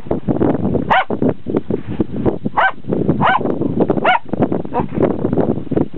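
A small dog barking in about five short, high yaps spaced roughly a second apart, over a steady rushing background.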